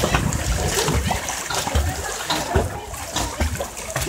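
Swimming-pool water splashing irregularly as a toddler's hands slap and paddle at the surface.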